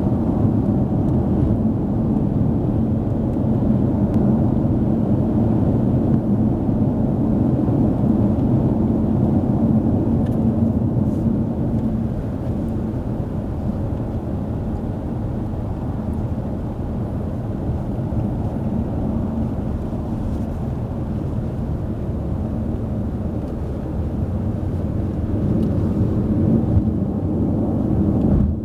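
Steady road and engine noise heard inside a moving car's cabin: a low rumble with a faint hum that fades about twelve seconds in, the noise easing a little there and growing again near the end.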